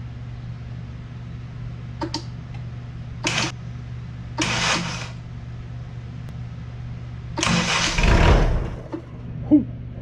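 Sawmill engine's starter bumped in short bursts, twice briefly and then for about a second and a half, the engine catching and firing unexpectedly on the last, longest bump before it stops, over a steady low hum.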